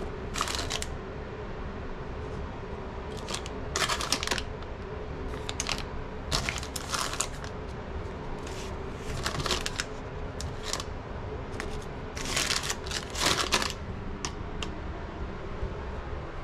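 Plastic-wrapped hotel amenity packets crinkling and rustling in irregular bursts as they are handled and dropped back into a wicker basket, over a steady faint hum.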